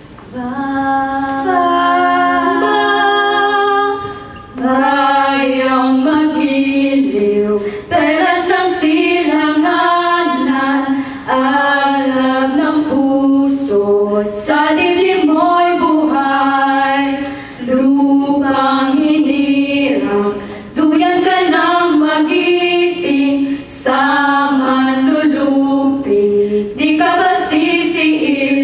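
A small vocal group singing a cappella into microphones, led by women's voices. The song runs in long held phrases with short breath pauses every few seconds.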